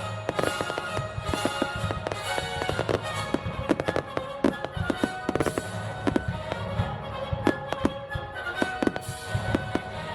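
Fireworks bursting and crackling in rapid, irregular succession over music playing throughout.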